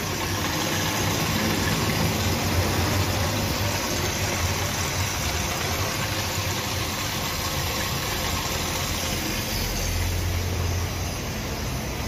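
Whirlpool dishwasher running with its flow meter unplugged: a steady low hum with a hiss of water as the machine tries to fill. It gets no flow-meter reading, the condition that throws its F6 error. The hum swells for a moment about ten seconds in.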